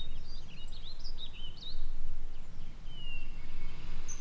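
Small songbirds chirping over a steady low rumble of outdoor background noise: a flurry of quick chirps in the first two seconds, then one falling whistle about three seconds in.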